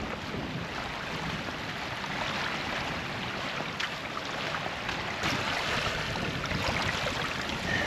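Steady wash of wind and small bay waves lapping on the shore.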